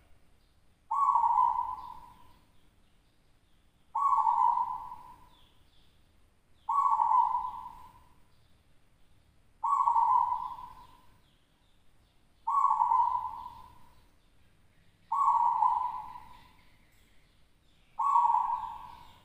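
Local zebra dove (perkutut) cooing its song: a short phrase that starts sharply and trails off, repeated about every three seconds, seven times.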